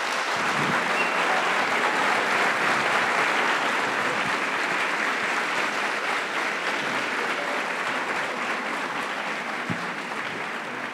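An audience applauding, building up over the first second or two and then slowly dying down.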